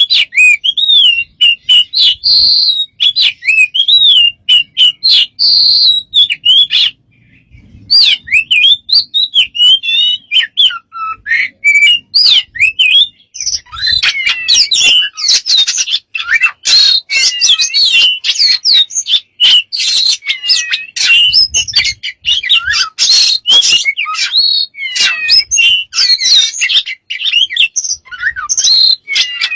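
A pet bird calling continuously in a rapid jumble of chirps, whistles, squawks and clicks, with many quick pitch glides; the calling pauses briefly about seven seconds in and grows busier and denser around the middle.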